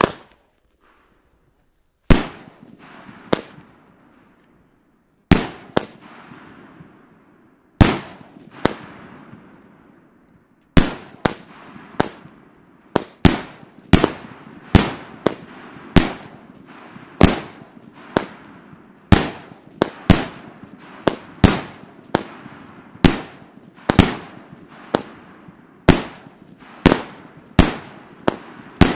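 A Pirotecnia El Gato 'Sonora' 25-shot salute cake firing: sharp bangs of salute shells bursting in the air, each trailing off in an echo. The first few come seconds apart, then from about a third of the way in they follow quickly, roughly one or two a second.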